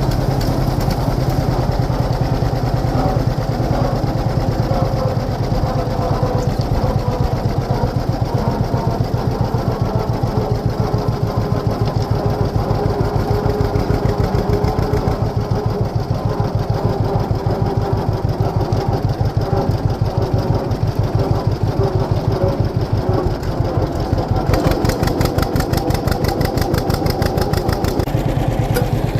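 Tractor engine running steadily with a fast, even pulsing throughout. A quick high ticking joins in for a few seconds near the end.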